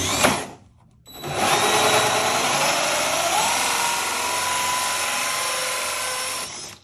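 Cordless drill driving a 2-inch diamond hole saw through a metal speaker grill: a short spin that stops, then about five and a half seconds of steady grinding cut, with a whine that rises partway through, stopping abruptly near the end.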